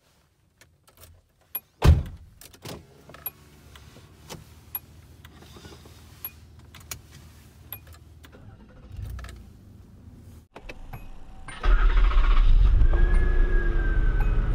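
Inside a 1985–1988 Nissan Maxima: the key and switches at the ignition give scattered light clicks and one sharp knock about two seconds in. Near the end a louder steady rumble starts in a 1989–1994 Maxima, and a held warning tone from the dash sounds over it.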